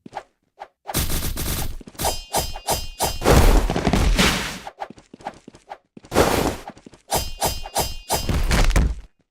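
A rapid series of sharp bangs and short metallic rings, with two longer, heavier blasts in between, like shots and clangs.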